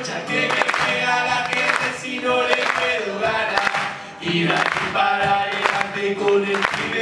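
Live acoustic music: two acoustic guitars strummed, with a cajón beating time and several voices singing together. There is a brief lull about four seconds in before it picks up again.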